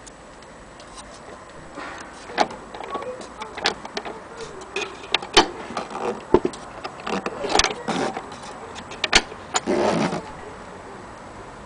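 Irregular metallic clicks, knocks and scrapes from handling an antique gramophone's clockwork spring motor and its wooden case, ending with a short rough scrape about ten seconds in.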